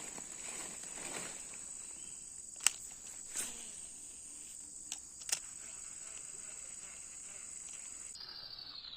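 Steady high-pitched drone of insects, with a few sharp clicks in the middle. Near the end the drone cuts off and a smooth falling electronic tone begins.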